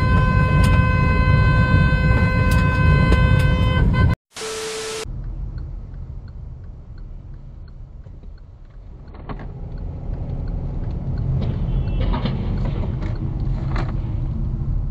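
A car horn held steadily over loud in-car road noise, cut off suddenly about four seconds in. A brief single tone follows, then a car's road and engine noise heard from inside the cabin, growing louder in the second half.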